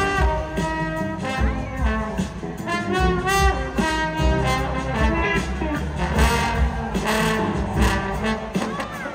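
Trombone solo played live over a rock band's drums and keyboards: a melodic line of held and sliding notes over a steady beat.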